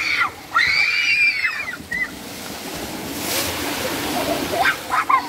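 Children shrieking and shouting, then water splashing and churning in a pool at the foot of a water slide, with a sharp splash about three seconds in and more short shouts near the end.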